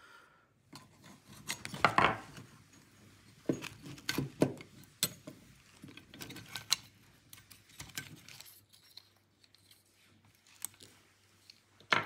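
Hand-handling of a Klippan seat belt retractor's small plastic and metal parts on a wooden bench: scattered clicks, taps and rubbing, busiest in the first half and thinning out later.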